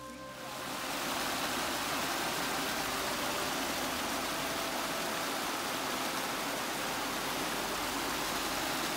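Small rocky creek rushing and splashing down over stone ledges: a steady rush of water that swells in over the first second, then holds even.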